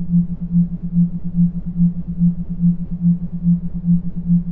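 Low electronic healing tone pulsing evenly, about two and a half beats a second, over a soft hiss and rumble.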